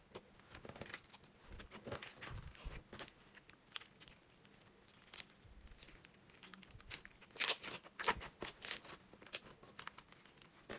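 Hands poking, stretching and squishing a slime, giving many short sticky crackles and small air-bubble pops, busiest in the second half.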